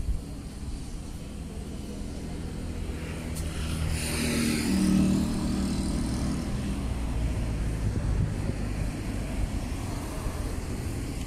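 A car drives past on the street, its engine and tyre noise swelling to a peak about five seconds in and then fading away, over a steady low rumble.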